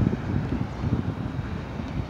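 Wind buffeting the microphone in irregular gusts over the low rumble of a BNSF freight train's cars rolling past.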